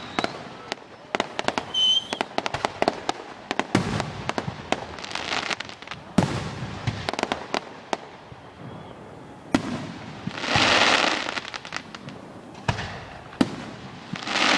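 Aerial fireworks display: shells bursting with deep booms every few seconds, amid many sharp cracks from crackling stars. A dense hissing crackle swells about ten seconds in and again near the end.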